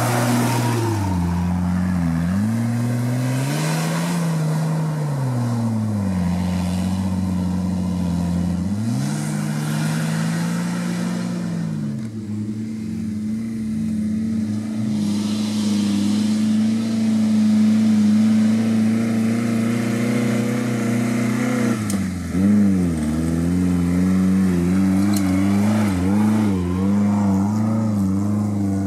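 Off-road 4x4's engine revving up and down repeatedly, holding steadier for a stretch midway, then giving quick short blips of throttle near the end.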